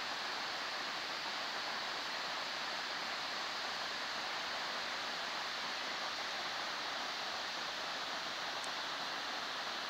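Steady rushing of many waterfalls pouring down a cliff face.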